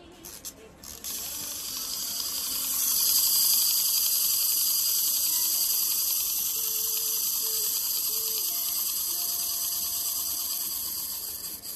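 Small clockwork wind-up hamster toy: a few clicks, then its spring motor and gears run with a steady high-pitched whirr for about ten seconds, slowly fading as the spring unwinds, then stopping suddenly.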